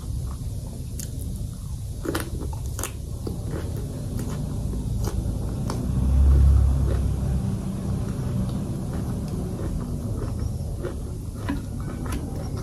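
Close-up mouth sounds of biting into and chewing a boiled broccoli floret, with scattered sharp clicks over a low rumble. A brief, louder low rumble swells about six seconds in.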